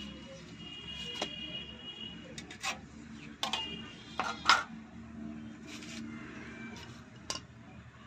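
Hand tools (a handsaw, a hammer and pliers) knocking and clattering against a concrete floor as they are picked up and set down: a few separate sharp knocks, the loudest about four and a half seconds in.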